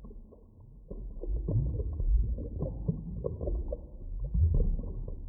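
Muffled underwater ambience: a steady deep rumble with many short, dull pops and gurgles, as heard by an underwater microphone.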